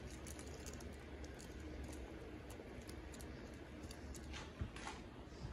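Pot of green chicken pozole on the stove with a ladle in it: faint, irregular little clicks and pops over a low steady hum.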